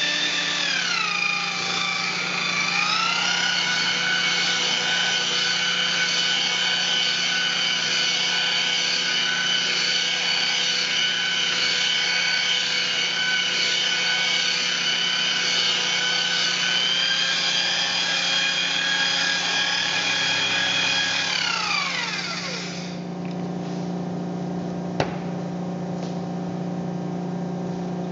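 Makita electric rotary polisher with a polishing pad buffing a solid surface countertop to a gloss, a steady motor whine. Its pitch drops about a second in and then holds. About three quarters of the way through the motor winds down and stops, leaving a low steady hum and one sharp click.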